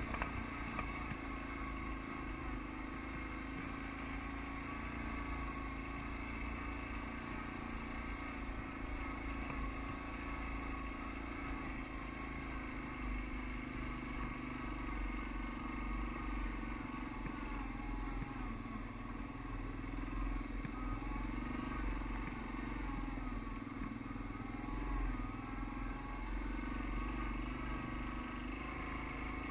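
ATV engine running steadily under load as the quad climbs a rocky hill trail, with a low rumble throughout.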